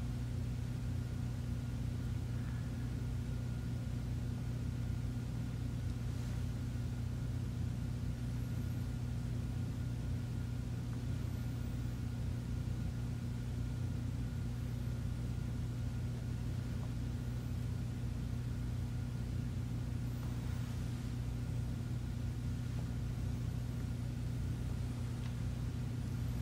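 Steady low background hum with a faint, thin, high steady tone above it; the chopstick moving through the soap batter makes no clear sound of its own.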